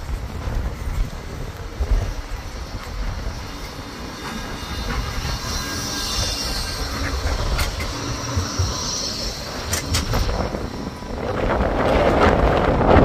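A Bombardier Flexity 2 tram passing close by on its rails: a low rolling rumble, a high wheel squeal as it goes past, and a few sharp clicks. A louder rushing noise rises near the end.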